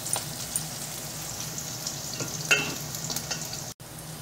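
Chopped onions sizzling as they fry in hot oil in an aluminium pot, stirred with a wooden spatula for a dal tempering. There is one louder click about two and a half seconds in, and a very short break in the sound near the end.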